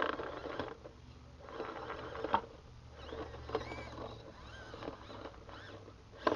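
Small 1:18-scale RC crawler's electric motor and drivetrain whirring in several short bursts as it climbs onto driftwood logs, its tyres scrabbling and slipping on the wood, with a sharp knock a little after two seconds.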